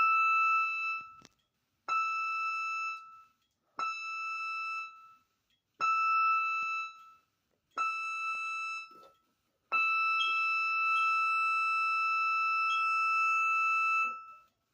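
Cruise ship general alarm signal from an electronic alarm sounder: a steady high tone in five short blasts about two seconds apart, then one long blast of about four and a half seconds. This is the close of the seven-short, one-long pattern that orders passengers and crew to their muster stations.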